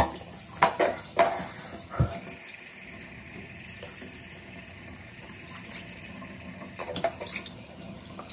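Bathroom sink faucet running steadily into the basin, starting about two seconds in, with a few short, sharp sounds from the person bent over the sink in the first second or so.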